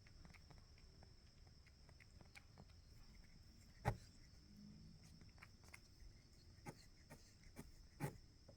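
Domestic cat purring faintly and steadily, with a sharp click about four seconds in and another near the end.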